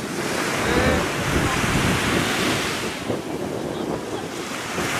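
Small waves washing onto a sandy shore, with wind rushing over the microphone.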